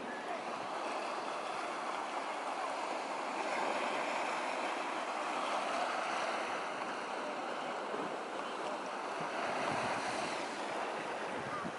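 Small waves washing onto a sandy beach: a steady surf hiss that swells and eases gently. A little wind buffets the microphone near the end.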